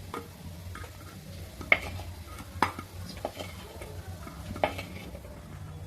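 Metal spoon scraping and clinking against a pan as sautéed greens are scooped out, over a faint sizzle from the hot oil. There are three sharper clinks, spread through.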